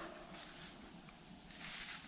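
Faint rustling noise in a lull between hunting hounds' bays; a drawn-out bay trails off at the very start.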